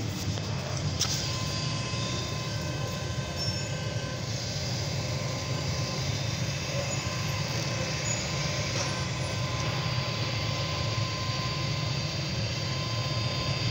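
Steady vehicle running noise: a low, even rumble of engine and road noise, with a faint steady whine above it.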